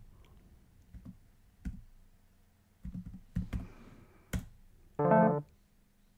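Scattered computer-keyboard clicks as word tiles are typed onto an online Scrabble board. About five seconds in, a short bright electronic chime of a few piano-like notes sounds when the move is played.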